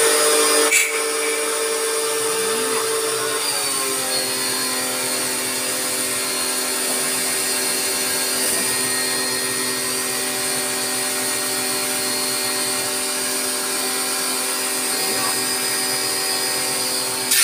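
Portable electric pressure washer running steadily as it sprays, its motor and pump giving a whine of several steady tones. About three and a half seconds in the pitch steps down a little and then holds. There is a brief click under a second in.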